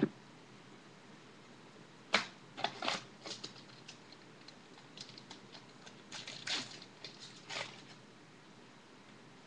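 Trading cards and their packs being handled: a string of short rustles and scrapes from about two seconds in until near the end.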